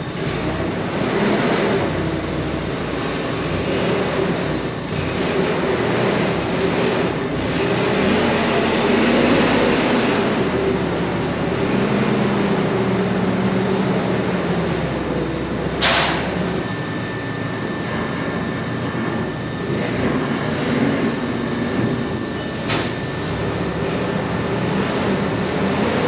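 Engine noise of a Clark forklift driving across the shop floor, running steadily with no letup. Two sharp knocks ring out, about two-thirds of the way through and again near the end.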